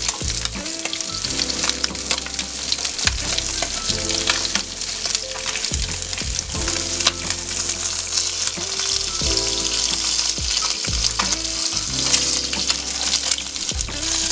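Small koi fish (climbing perch) sizzling as they fry in hot oil, a steady high hiss with scattered clicks of a utensil against the pan as the fried fish are lifted out. Background music plays underneath.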